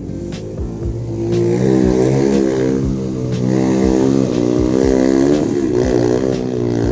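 Small motorcycle engine, the bike laden with sacks, running under load: it grows louder from about a second in and holds steady, its pitch wavering slightly.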